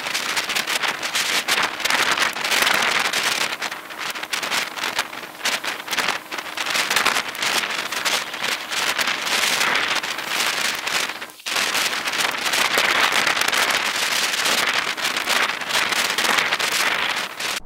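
Strong gusting wind buffeting the microphone: a loud, continuous rushing roar that drops out for a moment about two-thirds of the way through.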